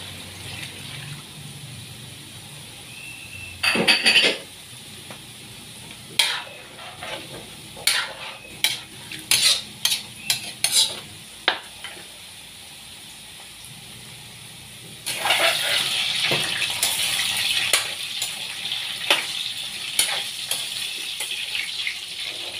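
A metal spatula clinks and scrapes against a large aluminium wok as chicken pieces are stirred in their sauce, with a run of sharp taps in the middle. About two-thirds of the way in, a louder sizzling rises from the hot pan and carries on under further scrapes.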